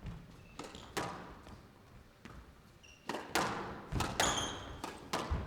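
A squash rally: the ball cracking off rackets and the court walls in an irregular series of sharp knocks, with a few short squeaks from players' shoes on the court floor.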